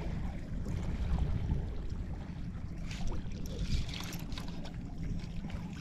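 Wind noise on the microphone and water lapping at a small skiff's hull, with a few faint ticks near the middle.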